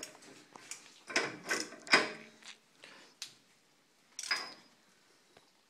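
A handful of short clinks and scrapes of metal parts being handled at a truck's wheel hub while a tanged retaining nut is fitted after the wheel bearing has been torqued. The loudest comes about two seconds in.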